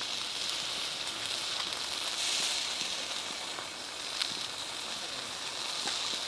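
Pork ribs sizzling with a steady hiss as they grill over wood embers and are basted with sauce, with a few sharp crackles from the fire, the clearest about four seconds in.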